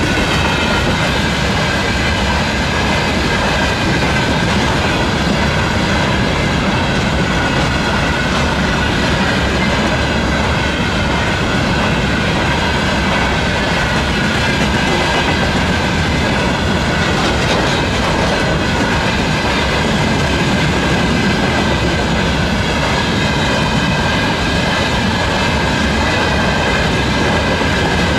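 Freight train of open wagons rolling past at speed: a loud, steady rumble with wheels clattering over the rail joints, and a faint high tone running through it.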